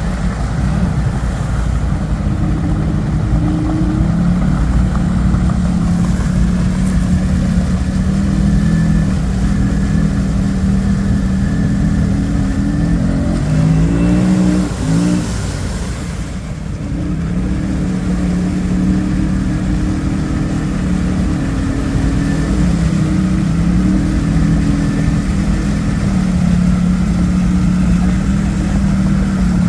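ATV engine running hard under steady throttle. Its pitch wavers up and down about halfway through, with a brief dip in level, then it settles back to a steady note.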